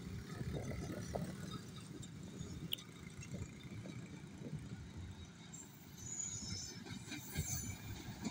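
Pakistan Railways HBU-20 diesel-electric locomotive hauling a passenger train, approaching at low speed with a low rumble as it slows for a station stop. Faint high squeals come in near the end.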